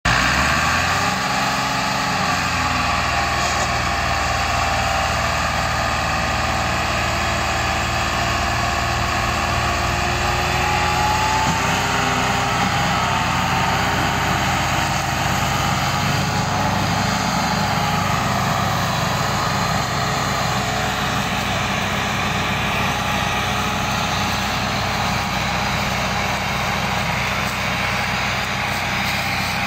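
Diesel tractor engines running hard under load, a steady heavy drone, as a Massey Ferguson 385 strains to pull a loaded sugarcane trolley.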